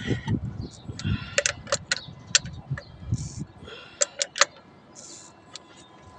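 Pipe wrench on a brass pipe fitting at a water pump's outlet, tightening it: sharp metallic clicks, in short runs of two or three, with a few low knocks of handling at the start.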